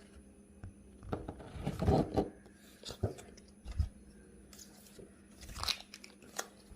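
Handling noises: a few short scrapes, rustles and light knocks, with a dull thump about four seconds in, over a faint steady hum.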